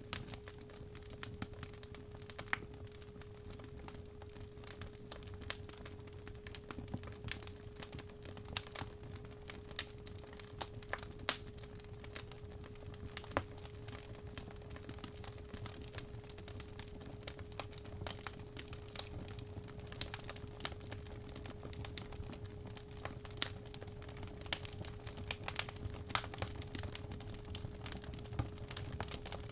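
Fireplace fire crackling, with irregular sharp pops and snaps over a low rumble, under a steady 417 Hz sine tone.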